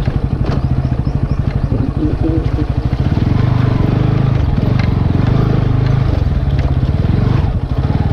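Bajaj Pulsar NS160's single-cylinder engine under way on rough ground. It runs at low revs with distinct separate beats, then the revs rise about three seconds in and hold there, with a brief dip shortly before the end. A few sharp knocks sound over the engine.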